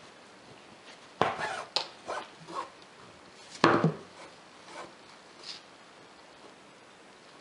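Embroidery needle and satin ribbon pushed and pulled through taut fabric stretched in a frame: two sharp pops, about a second in and again past three and a half seconds, each followed by a short rustle of ribbon drawn through, with a few softer rustles between and after.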